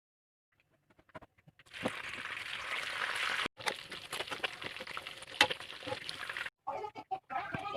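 Food sizzling in hot oil in a pan, a steady hiss with scattered crackles and pops, which cuts off twice and stops near the end.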